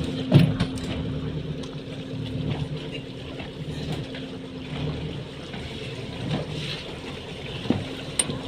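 Motorboat engine running steadily, a constant drone under the rush of water and wind, with a sharp knock about half a second in.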